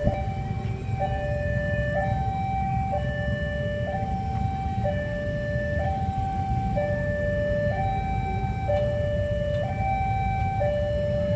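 Railway level-crossing warning alarm sounding a steady two-tone high–low signal, switching tone about once a second, with a low rumble underneath.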